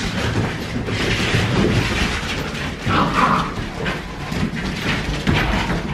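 Siberian husky puppies and an adult husky scuffling and playing on a hard floor: a busy run of claws clicking and scrabbling and bodies bumping.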